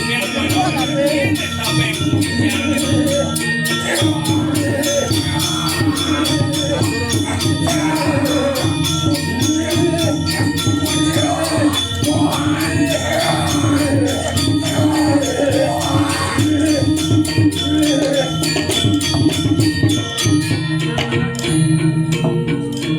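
Traditional music with dense, steady percussion and rattling, jingling bells. A wavering voice rises over it around the middle.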